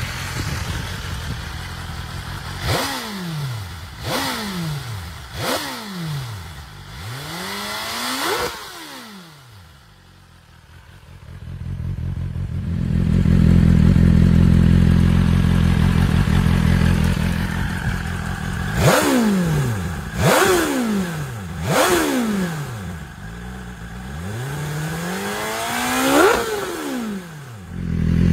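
BMW S1000RR inline-four engine revved at standstill in quick blips, each climbing in pitch and falling straight back to idle, about four times on the stock exhaust. Then, with a Yoshimura carbon silencer, it holds a loud steady idle before four more sharp blips.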